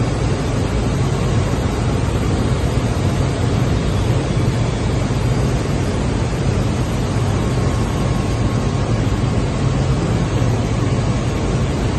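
SCM Record 132 CNC machining centre routing a wooden panel, its spindle cutter running steadily through the board.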